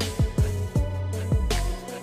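Background music with a steady beat: deep bass drum hits that drop quickly in pitch, and sharp snare or cymbal hits about every second and a half.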